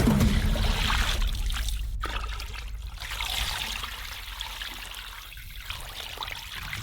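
Water pouring and trickling into a cauldron of sturgeon pieces as it is filled, growing gradually quieter, with a single click about two seconds in.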